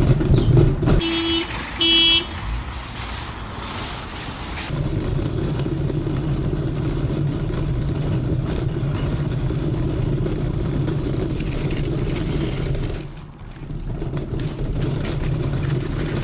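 Two short car-horn toots about a second apart, then a car engine running steadily, with a brief dip near the end.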